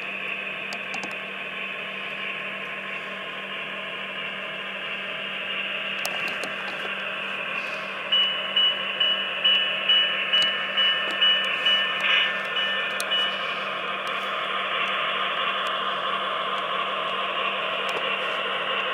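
QSI sound decoder in a Proto 2000 HO-scale RS27 model diesel locomotive plays a steady ALCO diesel engine running sound through its small speaker. From about 8 to 13 seconds in, the locomotive bell rings in rhythmic strokes, about two a second.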